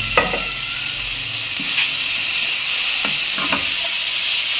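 Shredded cabbage and carrots sizzling in oil in a frying pan, with a steady hiss. A utensil knocks and scrapes against the pan a few times as the vegetables are stirred.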